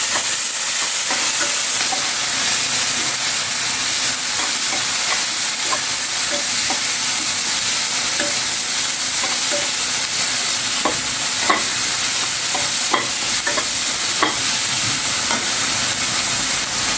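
Chopped onion and tomato with whole spices sizzling steadily in hot oil in a karai, with the scattered clicks and scrapes of a spatula stirring them, more of them a little after the middle.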